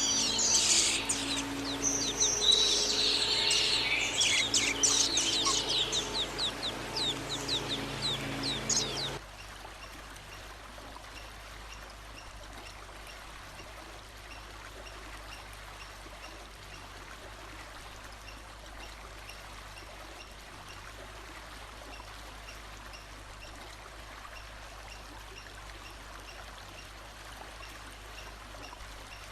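A songbird singing a loud, varied song of quick sweeping and trilled notes, which cuts off suddenly about nine seconds in, leaving a steady rush of running water.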